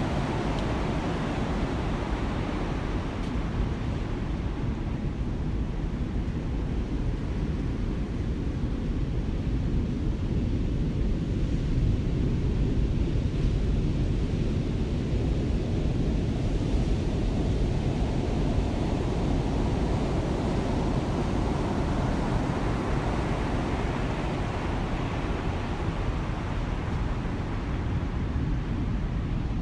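Heavy ocean surf and wind: a steady rushing noise with no breaks or distinct strikes.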